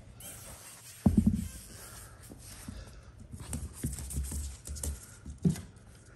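A loud thump about a second in, then a bulldog puppy's paws scrabbling and clattering on a hardwood floor as it runs after a ball, with a few sharper knocks near the end.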